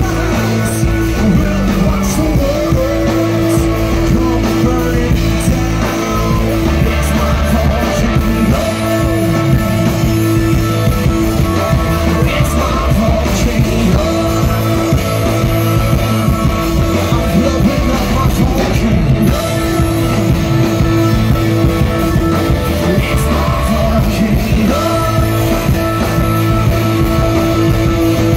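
Live rock band playing loudly and without a break, with electric guitar, bass, keyboards and drums and a singing voice, heard from among the audience.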